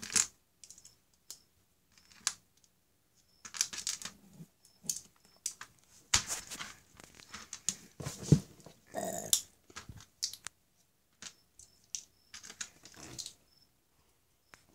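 LEGO bricks being handled and pressed together on a plastic baseplate: irregular plastic clicks, taps and small rattles.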